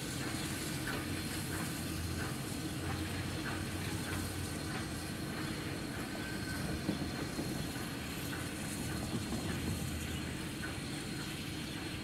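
Baldwin-built S160 2-8-0 steam locomotive moving slowly away on the track: a steady rumble with steam hiss and a few faint clanks.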